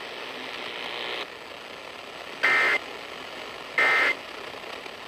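Emergency Alert System end-of-message data bursts: short, loud two-tone digital squawks about a second and a half apart, marking the end of the alert. Two sound about two and a half and four seconds in, over a low hiss.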